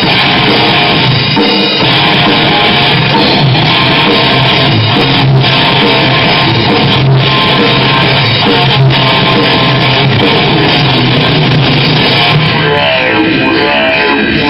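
Live rock band playing loud: electric guitar, bass guitar and drum kit together at a steady level. Near the end a run of quick repeated notes comes forward.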